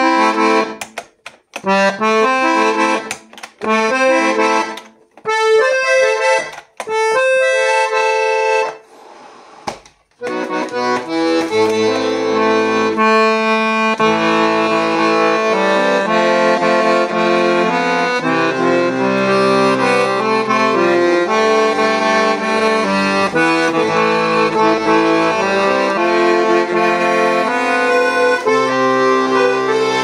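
Weltmeister 120-bass piano accordion being played: a run of short, separate chords with gaps between them, then from about ten seconds in a continuous tune on the treble keyboard over low bass-button accompaniment.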